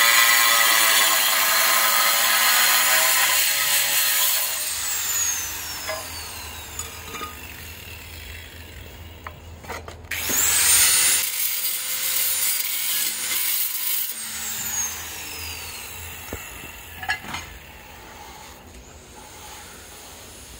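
Electric angle grinder cutting a ceramic floor tile, a loud whining grind that stops about four and a half seconds in as the disc winds down with a falling whine. About ten seconds in the grinder is run up again with a rising whine, then winds down; a few sharp knocks follow near the end.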